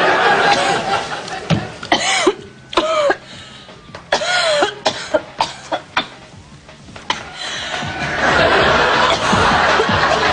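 A woman coughing in a string of short, separate coughs, some of them voiced, from about two seconds in until about seven seconds in, with film soundtrack music.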